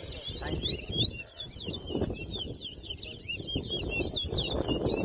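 Caged songbirds singing against each other in a bird-singing race: a rapid, unbroken stream of high, quick chirps and warbles. A low background murmur sits under the song.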